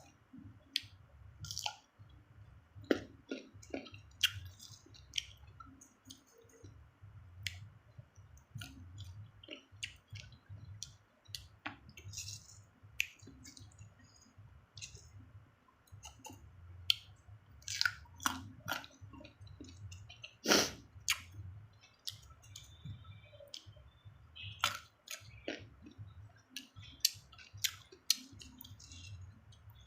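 Close-up chewing of crisp young cucumber and green mango, the 'krup krup' crunch of mukbang eating. Sharp crunches and mouth clicks come irregularly, several seconds apart, with the strongest ones a little past the middle and near the end.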